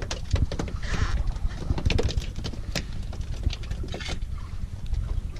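Irregular taps and knocks over a steady low rumble of wind and water on a small fishing boat.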